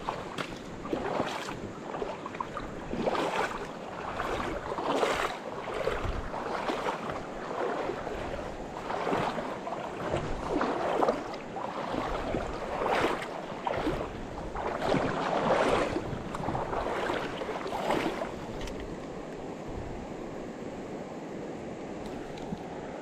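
River water sloshing and splashing in repeated surges, about one a second, as someone wades through a shallow shoal; near the end the surges stop and a steady rush of water remains.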